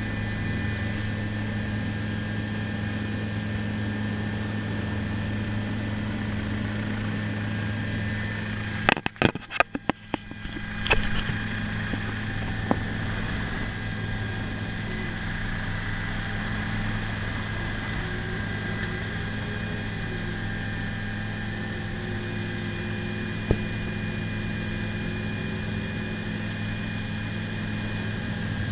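Helicopter engine and rotor running with a steady low hum, heard from inside the cabin. About nine seconds in, the sound briefly breaks up into a few sharp cracks and dropouts, then the steady hum returns.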